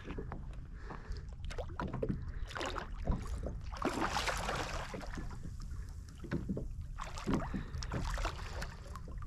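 Thornback ray splashing and thrashing at the surface beside a kayak, loudest about four seconds in, over a steady low rumble of wind and water.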